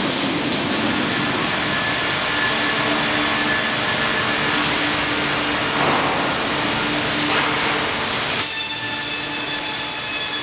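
Üstünkarlı UHM 120 H T tandem log bandsaw cutting a log fed on a rail-mounted hydraulic log carriage: a steady, dense machine noise with a few steady tones. About eight seconds in, the sound changes abruptly to a set of high steady ringing tones.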